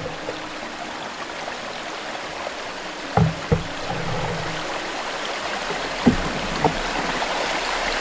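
Fast river water rushing around an open canoe as it runs a shallow weir under a bridge arch, with two pairs of short knocks about three and six seconds in.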